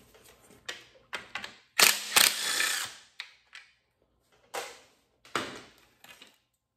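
Cordless power tool spinning bolts out of the inner timing belt cover of a Subaru WRX engine: several short bursts, with one longer run of about a second about two seconds in, then a few short knocks and clatters as the tool is handled.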